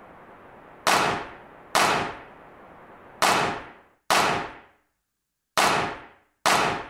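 Six sharp metallic clangs at uneven intervals, each ringing out for about half a second.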